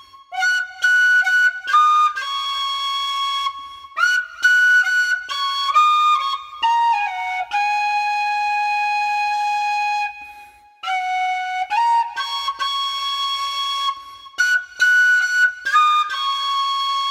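Solo flute playing a slow melody, the notes sliding into one another, with one long held note about halfway through.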